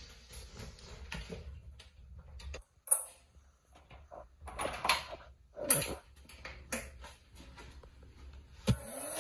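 Scattered sharp knocks and clicks in a small tiled room, over a faint low hum that stops about two and a half seconds in. Just before the end a louder, steady rushing sound starts.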